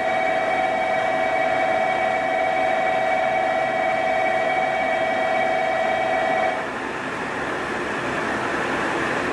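Station platform departure bell ringing as one steady electronic tone, cutting off abruptly about six and a half seconds in, over the steady hum of a train at the platform.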